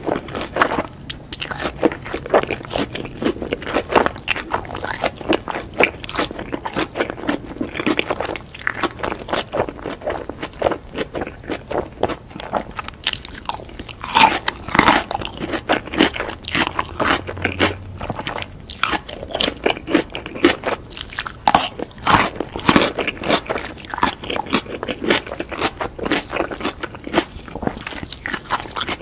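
Crunching and chewing of crisp, crumb-coated fried food, a dense steady run of crunches.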